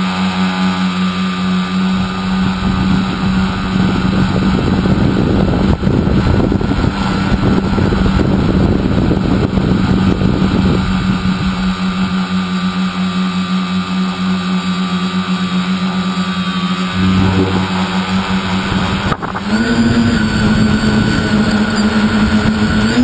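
Tricopter's three 1000 kV brushless motors with 9047 propellers buzzing steadily in flight, heard from the GoPro on board. From about four to eleven seconds in, low wind buffeting rumbles over the microphone. About nineteen seconds in, the buzz dips briefly and then settles at a slightly higher pitch as the throttle changes.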